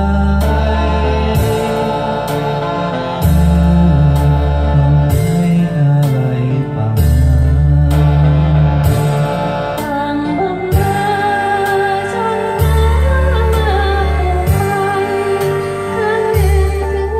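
A song playing, with a bass line repeating about every two seconds under chords and a melody that becomes more prominent about ten seconds in.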